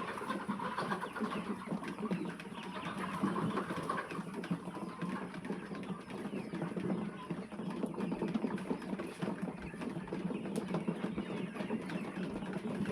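A large flock of chickens in a poultry house clucking and calling all at once, a steady dense chatter of many overlapping calls.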